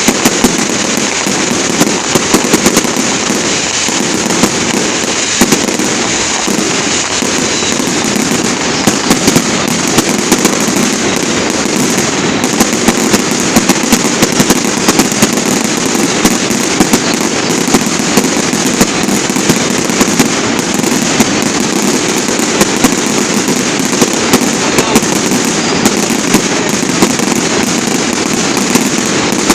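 Fireworks display going off without a break: dense, steady crackling with many sharp bangs.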